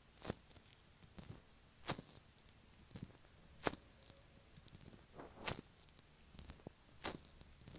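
Latex-gloved fingertips tapping and touching an earphone microphone: sharp, sticky taps close up, about one every one and a half to two seconds, with fainter ticks in between.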